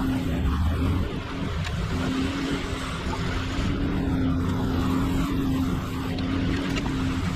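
An engine running steadily at a constant speed, with a steady hum and no change in pitch.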